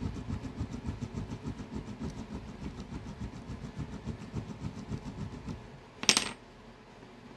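Hobby knife blade scoring a thin brass tube as the tube is rolled under it on a wooden bench, making a fast run of small scraping clicks. About six seconds in comes a single sharp metallic clink.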